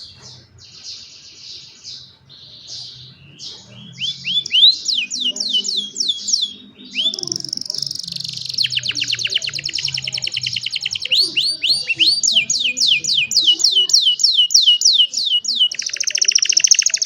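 Young domestic canary singing: a few short notes with pauses, then long runs of quickly repeated rising chirps and a fast rolling trill, ending in a dense, buzzy trill near the end.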